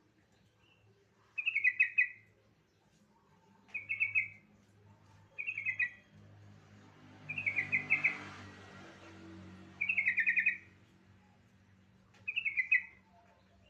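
Yellow-vented bulbul calling: six short bursts of quick chattering notes, each under a second, repeated every two seconds or so. A faint rush of noise swells and fades around the middle.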